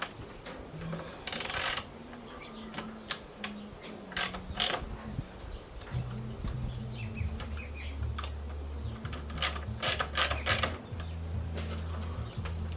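Irregular metallic clicks and clanks of a socket wrench and the chainsaw being handled as the guide bar nuts are tightened after the chain tension is set. A low steady hum comes in about halfway through.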